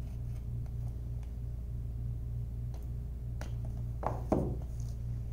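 A knife blade slitting the seal on a cardboard phone box. Faint small ticks and scrapes come first, then two sharper scrapes about four seconds in, over a steady low hum.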